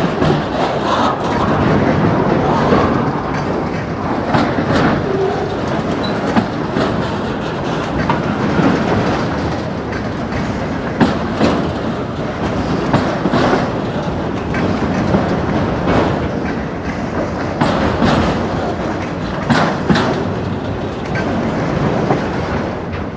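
A string of autorack freight cars rolling past close by: a steady rumble of steel wheels on the rails, with irregular sharp clicks and clanks from the wheels and couplers.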